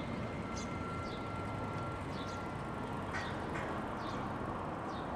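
Iyotetsu 5000-series low-floor tram easing slowly up to the platform with a low, steady rumble and a faint steady whine, while small birds give repeated short, high, falling chirps.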